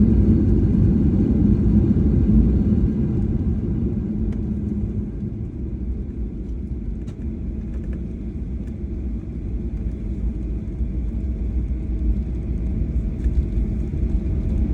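Low rumble inside the cabin of a Boeing 737-800 on the ground after landing. It eases for a few seconds and then builds again near the end, with a few faint clicks.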